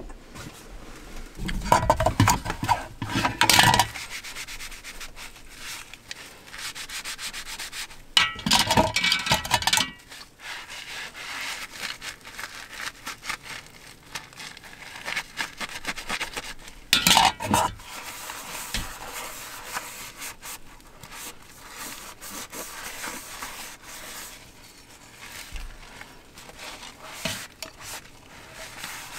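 A soapy sponge scrubbing a stainless-steel cup and wooden chopsticks in a basin: continuous rubbing strokes, with louder stretches about two seconds in, about eight seconds in and about seventeen seconds in.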